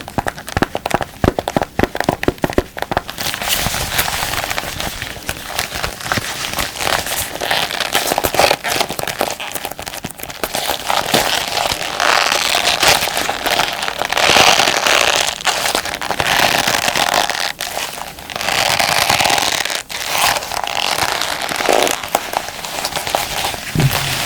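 Combat gloves crinkled and rubbed close to the microphone: quick, sharp crackles at first, then a dense, continuous crackling rustle that swells and eases.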